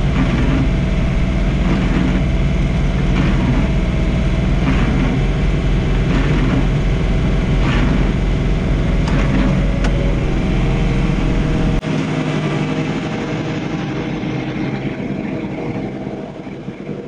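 John Deere 3046R compact tractor's diesel engine running steadily, with faint knocks about every second and a half. About two-thirds of the way through the deep engine sound cuts off abruptly, and the remaining noise fades away.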